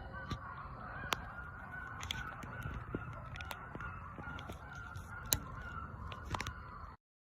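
A group of coyotes howling and yipping together in a continuous wavering, high-pitched chorus, broken by a few sharp clicks. It cuts off suddenly near the end.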